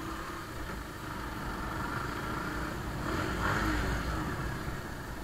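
Bajaj Pulsar motorcycle's single-cylinder engine running at low road speed, with a broad swell of noise about three seconds in.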